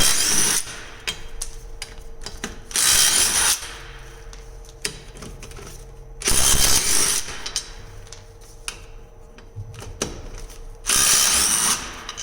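DeWalt DCF887 cordless impact driver hammering four lug nuts loose. There are four bursts of about a second each, a few seconds apart, one per nut, with small clicks between them.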